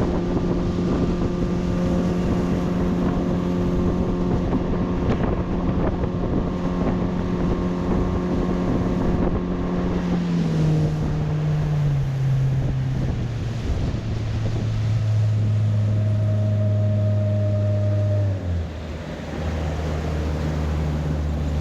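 Boat engine running at a steady speed, then throttled back in several steps over the second half, its pitch dropping lower near the end as the boat slows.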